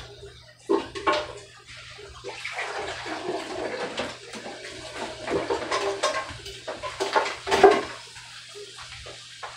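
Water running from a kitchen faucet into the sink, with dishes and utensils clattering; the water shuts off about eight seconds in.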